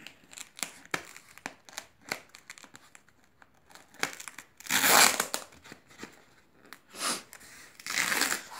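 Scissors cutting through packing tape and foam wrap on a parcel: a string of small snips and clicks, with louder crinkling tearing rips about halfway through and twice near the end.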